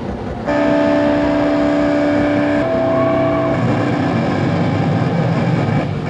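Live rock band playing loud: distorted electric guitars hold sustained notes over a rumbling low drone, jumping in loudness about half a second in and shifting to a new held note about halfway through.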